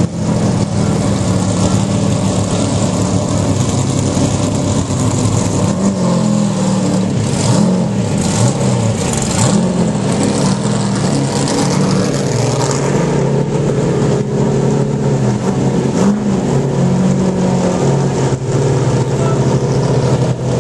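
NASCAR stock car's V8 engine running at low speed with a lumpy idle, the driver blipping the throttle several times so the pitch rises and falls, most strongly about seven to nine seconds in.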